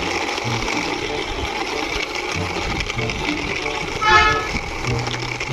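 Steady vehicle running sound over background music, with a single short horn honk about four seconds in.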